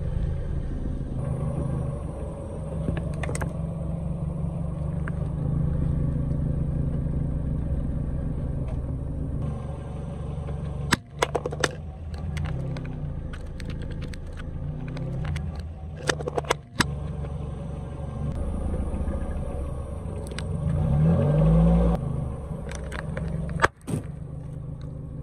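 A car's engine running at a slow crawl, a low steady hum that rises briefly once near the end, as the tyre rolls over objects on asphalt. Several sharp cracks and clicks come in short clusters, around the middle and again near the end.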